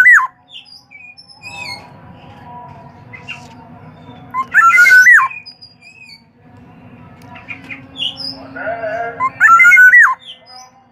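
Black-naped oriole calling: a loud, fluty whistled phrase that rises and then drops, given three times about five seconds apart. Fainter chirps of other birds sound between the calls.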